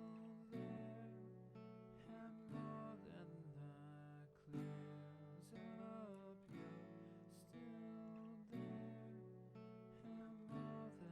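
Soft background music of plucked notes and chords, a new note or chord every second or two.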